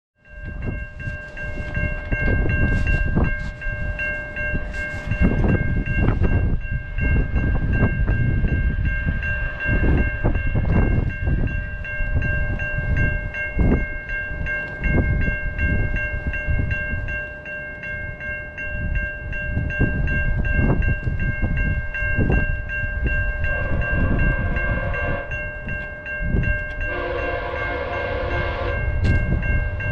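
Level-crossing warning bell ringing steadily, with wind gusting on the microphone. Near the end an approaching VIA Rail passenger locomotive sounds two long horn blasts.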